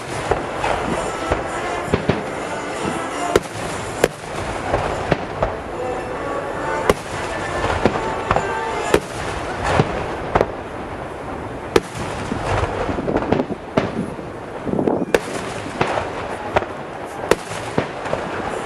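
Aerial fireworks display: shells bursting in a rapid, irregular string of sharp bangs, roughly one or two a second, over a continuous rumble of further bursts.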